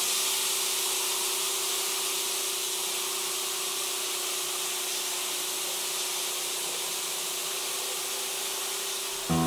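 Fermenting sugarcane juice fizzing in a vat: a steady hiss of bubbles breaking in the foam, under a faint steady hum. Acoustic guitar music comes in right at the end.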